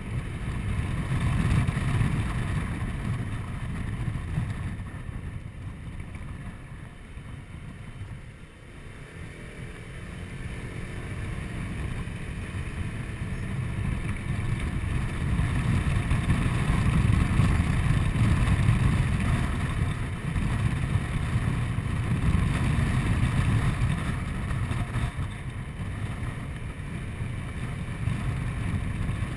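Honda Forza 125 scooter on the move: its single-cylinder engine drone mixed with wind rushing over the microphone and road noise. It drops quieter about five to nine seconds in, then grows louder again and holds.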